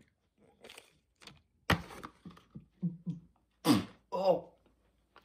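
A single thunk, then short grunts and groans from a man reacting to a foul-tasting dirty-dishwasher-flavoured jelly bean.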